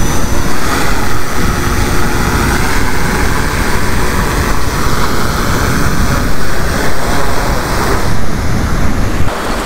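Wind rumbling across the microphone over the wash of surf on the beach.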